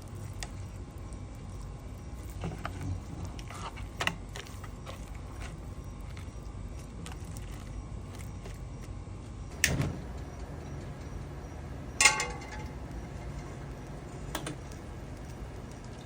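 Kitchen handling sounds: a few scattered knocks over a low steady hum, a louder knock about ten seconds in, and a ringing clink of a hard dish or utensil about twelve seconds in.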